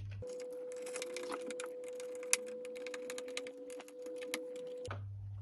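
Screwdriver driving the dimmer switch's fixing screws into the wall box: a rapid, irregular run of small clicks and ticks, with a faint steady hum under them that stops a little before the end.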